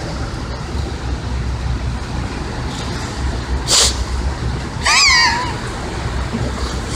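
Boat motor running low and steady over the rush of a fast river current. A short hiss comes about four seconds in, and a brief high wavering cry near five seconds.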